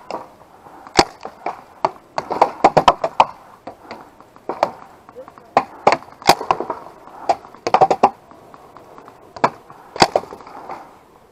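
Paintball markers firing: sharp pops, some single and some in quick strings of several, scattered irregularly.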